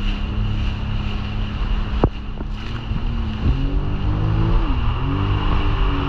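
Jet ski engine running at a steady pitch, then revving higher a little past halfway, dipping briefly and picking up again, with wind buffeting the microphone. A single sharp click about two seconds in.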